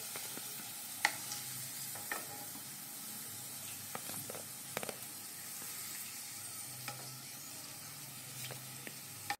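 Hot oil sizzling steadily in a kadhai as fried potato cubes are lifted out with a spatula, with a few short clicks of the spatula against the pan and plate.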